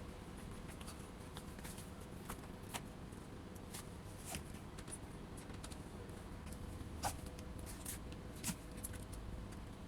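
Scattered light clicks and taps, irregular and a second or so apart, over a faint steady hum.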